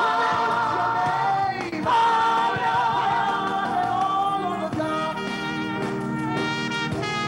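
Lead singers and a choir singing a gospel praise chorus with music behind them, holding long, wavering notes.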